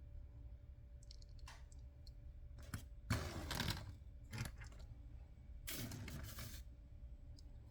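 Toy Jeeps being handled: scattered light clicks and taps, with two short scraping, rustling bursts about three and six seconds in.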